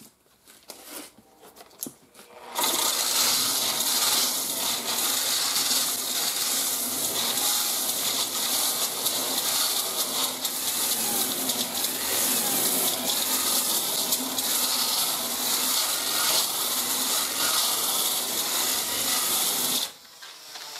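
Electric sander with a 36-grit fiber resin disc, run on slow speed, grinding steadily against the sheet metal of a glued-on wheel-arch patch panel, knocking the seam down to prepare it for body filler. It starts about two and a half seconds in and cuts off suddenly near the end.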